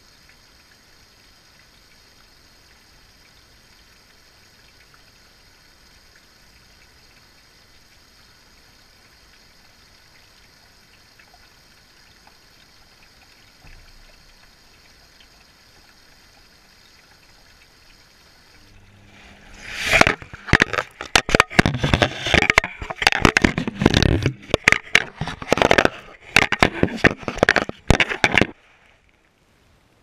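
Water splashing and sloshing in a washing machine drum, heard from a GoPro inside it: a faint steady hum, then about eight seconds of loud, uneven splashing starting about two-thirds in that cuts off suddenly.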